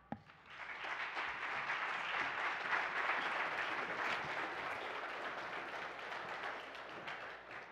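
Audience applauding. It builds up within the first second, holds steady, and tapers off near the end.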